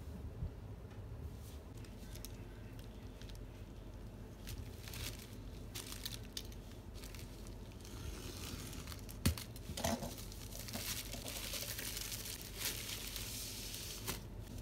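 Plastic poly mailer bag crinkling as it is handled and torn open, with light scattered rustles at first, then denser, louder crinkling from about eight seconds in, and a sharp click shortly after.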